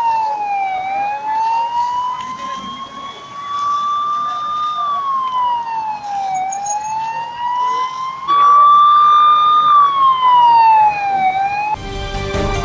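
Emergency vehicle siren wailing, its pitch slowly rising and falling about every five seconds over a rushing background noise. Near the end it cuts abruptly to loud music.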